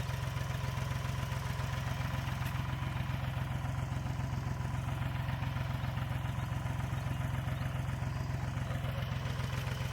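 Tractor engine running steadily at an even pitch while it pulls a middle-buster plow through the potato rows, digging up potatoes.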